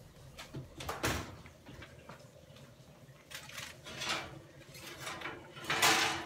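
Oven door pulled open about a second in. Then the metal rack and a foil-lined pan scrape and rattle as the pan is slid out, loudest near the end.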